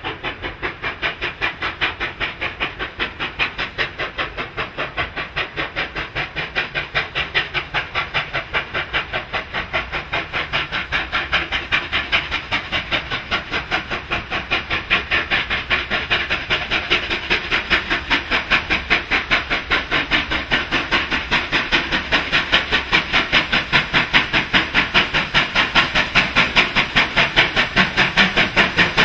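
Steam locomotive 3801, a C38 class Pacific, working under steam with its exhaust beating in a steady rhythm, growing louder as it approaches.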